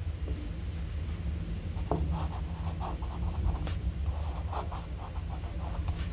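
Medium nib of a BIC fountain pen gliding across paper as cursive words are written, in short strokes starting about two seconds in, with a few faint ticks. The nib is smooth, with a little feedback. A steady low hum runs underneath.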